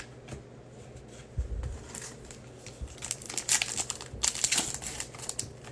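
Crinkling and tearing of a trading-card pack wrapper being ripped open, an irregular crackle over a few seconds, with a soft knock of handling about a second and a half in.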